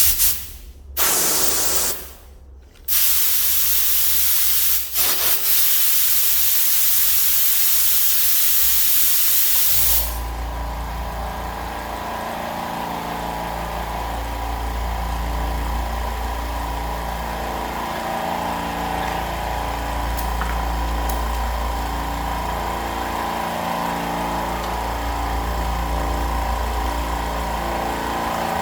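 Compressed air hissing out, first in two short blasts and then in one long blast that cuts off suddenly about ten seconds in. After that, the low-noise oil-less 4.5 hp air compressor runs with a steady hum.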